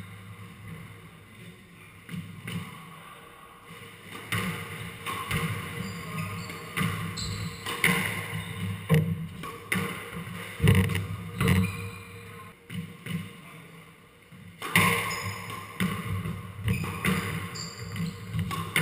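Squash rally: the ball struck by rackets and hitting the walls in sharp, irregular hits, with short high squeaks of shoes on the wooden court floor. The hits start about four seconds in and pause briefly a little past the middle.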